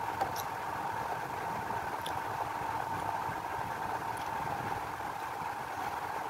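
Steady mechanical background hum with a faint high steady tone, and a few soft scattered clicks.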